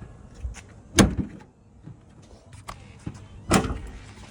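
A car hood being shut: two heavy thuds, about a second in and again near the end, each with a short ring, with light clicks and knocks between.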